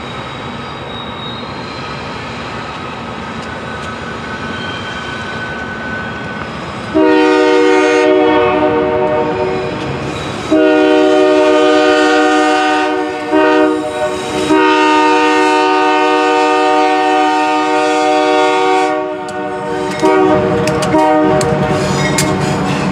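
Multi-chime air horn of a freight train's lead locomotive, a Union Pacific GE AC4400CW, sounding a series of long blasts with short ones between. Under the horn, the rumble of the approaching train grows louder.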